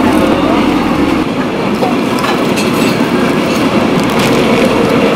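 Large pot of water at a hard rolling boil over a gas burner, a steady rumbling, bubbling noise.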